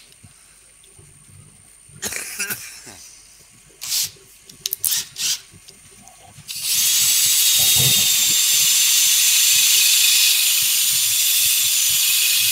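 A few short clicks and knocks as a cordless drill is picked up and readied, then about six and a half seconds in a flap sander in the drill starts sanding the inside of a wooden vase on the lathe: a loud, steady hiss with a faint high whine.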